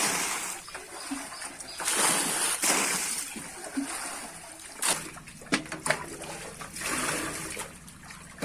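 Water splashing in separate gushes as buckets are scooped full in a shallow concrete tank and tipped out over its rim, with a few short sharp knocks about five to six seconds in.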